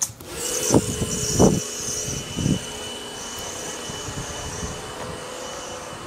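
A steady machine hum with a high whine that starts abruptly, with three dull knocks in the first few seconds.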